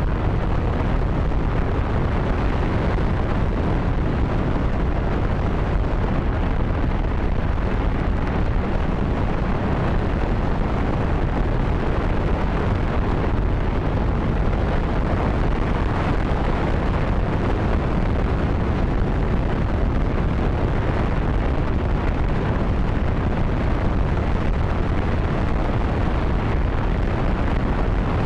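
J-2X liquid-hydrogen/liquid-oxygen rocket engine firing in a steady mainstage burn during a full-duration test on a test stand. It makes a continuous, loud rush of noise, heaviest in the low end, that holds an even level without change.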